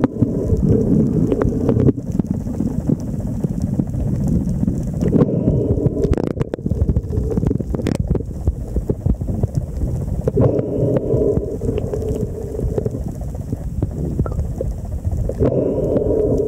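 Muffled underwater noise picked up by a camera in a waterproof housing: a steady low rumble of moving water, with a low hum that comes and goes every few seconds and a few faint clicks.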